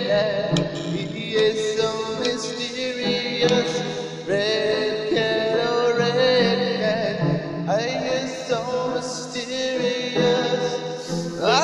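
A lo-fi keyboard pop song: piano and synth keyboards with a male voice singing. Rising pitch swoops come about four, eight and eleven seconds in.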